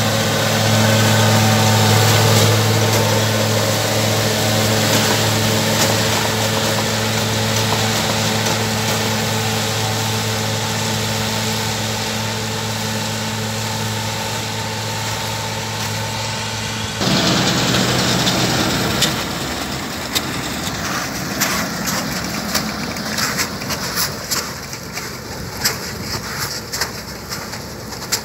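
Engine of harvest farm machinery running steadily, a loud, even hum. About 17 seconds in, the engine hum falls away and leaves a noisier, rattling machine sound with scattered clicks.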